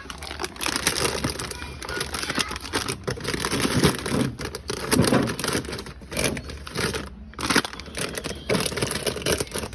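Plastic snack packaging crinkling and rustling as it is handled, with a few brief pauses.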